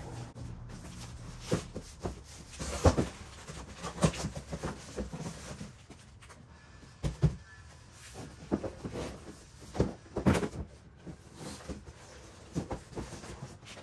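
Cardboard shipping carton being handled and lifted off the boxed product: irregular scraping, rustling and hollow knocks of cardboard, the loudest about three and four seconds in and again about ten seconds in.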